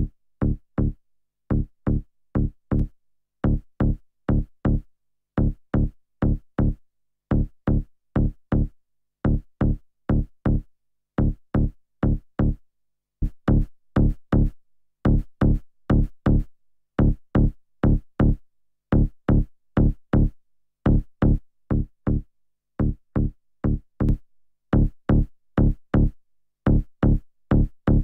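A looped electronic bass line of short staccato notes repeating a two-bar pattern, run through a loudness maximizer plugin. About halfway through it gets somewhat louder and brighter.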